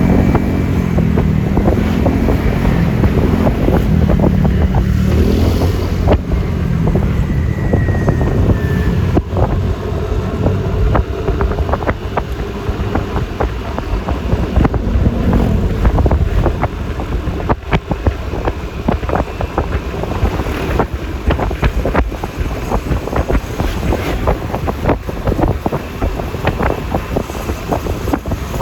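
Yamaha Lexi LX 155 scooter's 155 cc single-cylinder engine running under way, with heavy wind noise on the microphone. The engine pitch rises and falls over the first few seconds as speed changes, and frequent short clicks come through in the second half.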